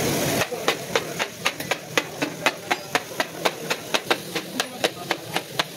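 Metal spatulas clanking rapidly against a large black iron karahi as chicken keema is stirred and chopped in the oil, about four or five strikes a second, over a faint sizzle.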